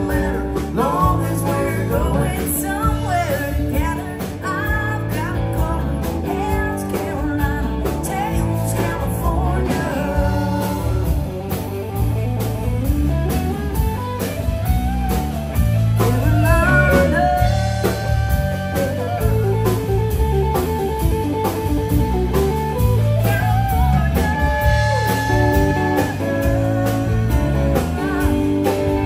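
Live band playing blues-rock, with electric guitar, singing and a steady bass and drum beat.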